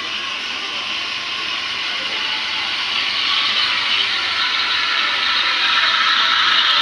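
Espresso machine steam wand heating milk in a stainless steel pitcher: a steady hiss that grows gradually louder.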